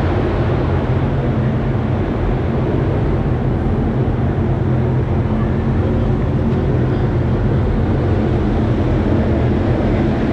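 Dirt late model race car engines running loudly and steadily, a constant low engine drone without clear revving.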